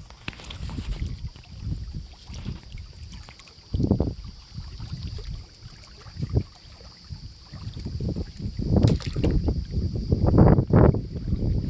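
Wind buffeting an outdoor microphone in irregular low rumbles, strongest near the end, over a steady high-pitched hiss.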